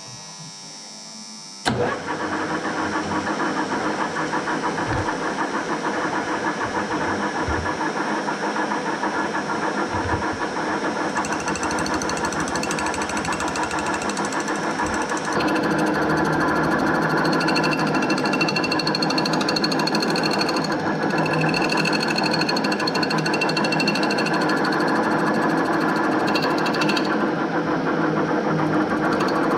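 A metal lathe starts up about two seconds in and runs steadily with a fast mechanical rattle. From about halfway through it gets a little louder and some steady higher tones come in.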